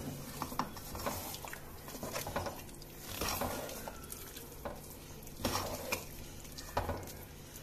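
Wooden spatula stirring a thick rice-and-lentil mash in a metal pot, with irregular soft scrapes and knocks against the pot's sides.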